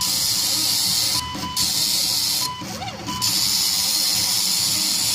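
Homemade Arduino-driven CNC engraver running fast on votive candles: a steady high hiss from the engraving head, broken twice by short pauses where the stepper motors whine and glide in pitch as the head moves.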